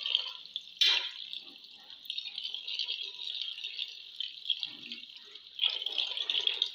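Metal ladle stirring a simmering chicken and potato curry in a metal pot, with wet sloshing and a sharp clink of the ladle against the pot about a second in, over a steady hiss.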